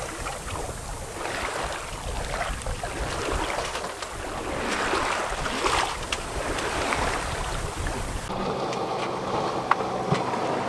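Water rushing and splashing along the hull of a 30 ft sailing sloop moving fast under sail, with wind on the microphone. About eight seconds in, the sound cuts abruptly to a steady low hum with a couple of sharp clicks.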